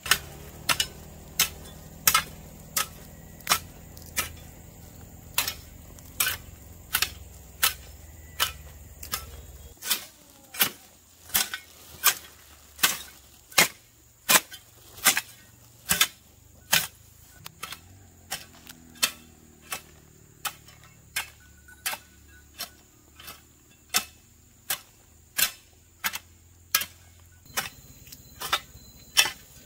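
A tool striking something over and over in an even rhythm of sharp knocks, about three every two seconds.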